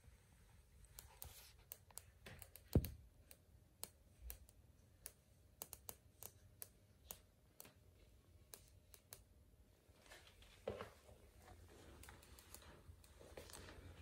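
Samsung UE43TU7020 LED TV giving off faint, sharp, irregular clicks, one much louder about three seconds in. These clicks are the fault the set is being filmed for. Softer rustling comes in near the end.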